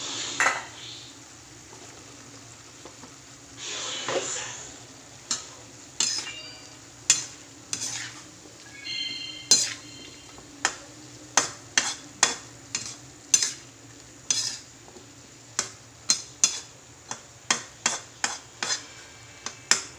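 A metal spatula scraping and clanking against a wok as pork and squash cubes are stirred, with a low frying sizzle underneath. The sharp metal knocks come irregularly, about one or two a second, from about five seconds in.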